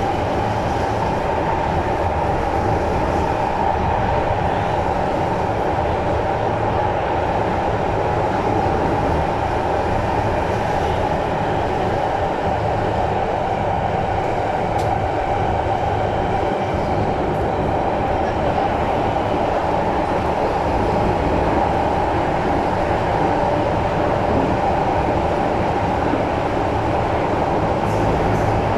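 Singapore MRT train running at steady speed, heard from inside the passenger car: an even rumble and rail noise with a steady mid-pitched hum.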